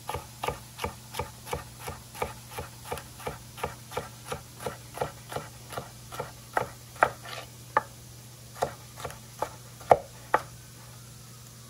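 Chef's knife slicing a yellow bell pepper into thin julienne strips on a wooden cutting board: a steady run of knocks as the blade meets the board, about three a second, stopping near the end.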